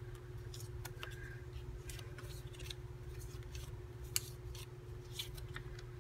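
Small paper tags and cards being handled and flicked through by hand: soft, scattered rustles and taps, with one sharper click about four seconds in, over a faint steady hum.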